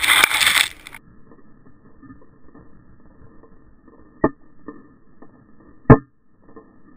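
Loud rushing, splashing water on an underwater camera that cuts off abruptly about a second in. Muffled underwater background follows, with two sharp knocks more than a second apart, the second the louder.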